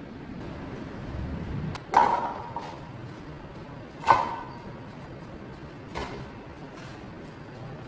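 Small glass bowls clinking against a glass blender jar as chopped ingredients are tipped in: three sharp clinks with a short ring, about two seconds apart, the last one softer.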